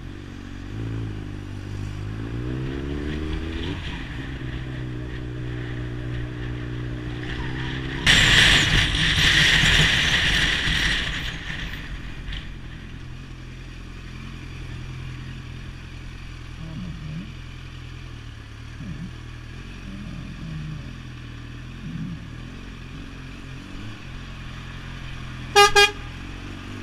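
Car engine pulling away with rising revs and a change of gear, then running steadily, with a loud rush of noise for about three seconds midway. Near the end comes a brief, very loud horn blast from an articulated lorry close alongside, sudden enough to make the driver jump.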